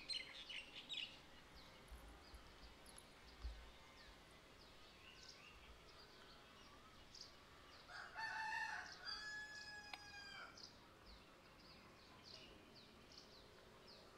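A rooster crows once, about eight seconds in: a single call of roughly two and a half seconds. Small birds chirp faintly in short high notes throughout.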